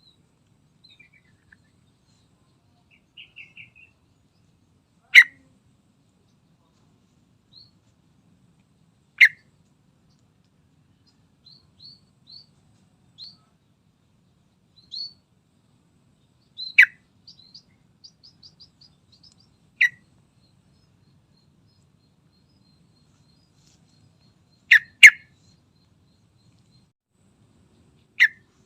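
Yellow-vented bulbul (trucukan) calling: loud, very short sharp notes every few seconds, one close pair near the end, with faint high chirps in between.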